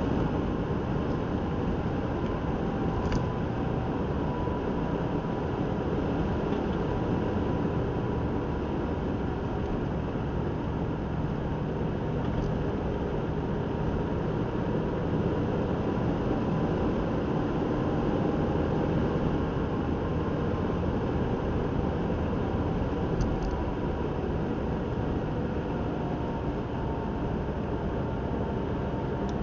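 Steady in-cabin road and engine noise of a car driving at a constant speed: a low, even rumble of tyres and engine with a faint hum, unchanging throughout.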